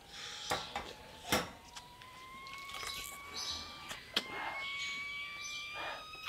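Quiet room ambience with faint chirping birds and a thin steady tone that slowly rises in pitch. A few sharp clicks sound, the loudest about a second and a half in.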